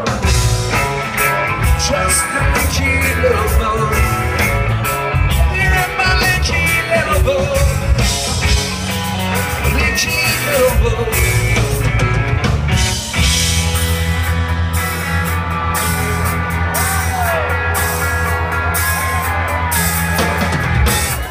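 A rock band playing live, with drums, bass and guitar and some singing over it. About thirteen seconds in, the bass settles into long held notes.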